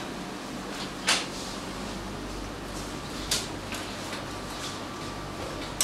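Quiet room tone of a meeting room during a pause in a talk, broken by two short clicks or knocks, one about a second in and one about three seconds in.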